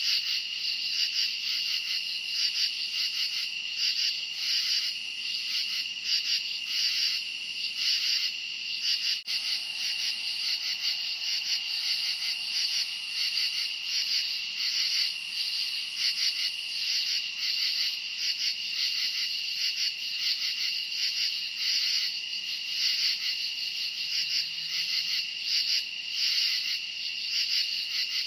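A dense night chorus of crickets chirping, a continuous high-pitched pulsing trill with no break.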